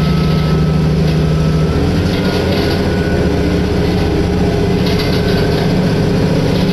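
Diesel railcar running, heard from inside the carriage: a steady engine drone with rail noise, its pitch shifting about two seconds in.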